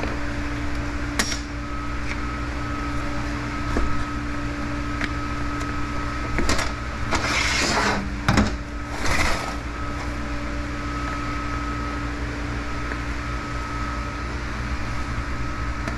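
Hand tools clicking and knocking against a TH350 automatic transmission case while the accumulator cover snap ring is being worked out, over a steady background hum. Near the middle come two short rushing, scraping noises.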